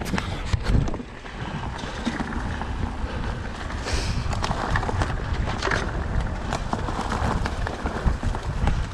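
Wind rumbling on the camera microphone while riding an e-mountain bike, with scattered clicks and knocks from the bike rattling over the trail.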